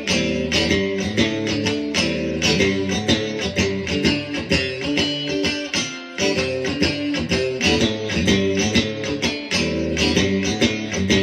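PRS SE Swamp Ash Special electric guitar played on its middle and bridge pickups together in single-coil mode: chords played in a steady rhythm, with a brief break about six seconds in.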